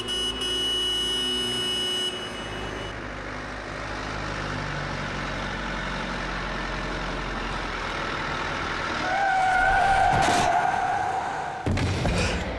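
City street traffic, with a car horn sounding long about nine seconds in, followed by a sudden loud burst of noise near the end.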